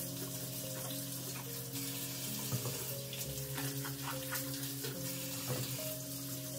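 Kitchen faucet running steadily into a sink while vegetables are rinsed by hand under the stream, over soft background music of held notes.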